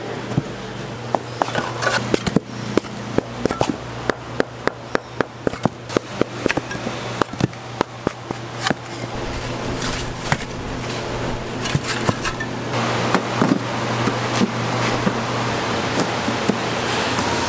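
Food-preparation work: a quick, irregular run of sharp knocks and clicks from utensils, several a second, over a steady low hum and a hiss that grows louder from about ten seconds in.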